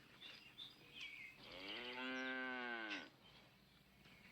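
A cow mooing once: a single drawn-out moo of about a second and a half, starting about a second and a half in.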